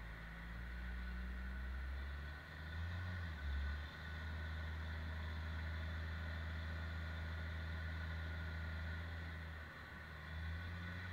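John Deere wheel loader's diesel engine running steadily as it works at the feed stack. The engine note rises briefly twice, once about three seconds in and again near the end.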